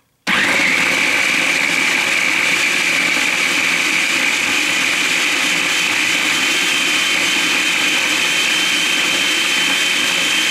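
Food processor running continuously, its blade chopping pitted prunes into a wet mix of milk, egg and orange juice. A steady motor whine starts abruptly just after the opening and slowly climbs in pitch.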